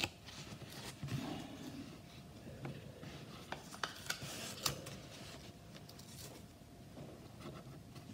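Faint rubbing and scraping with scattered light clicks as small card and laser-cut model parts are handled and pressed into place, the clicks clustering a little past the middle.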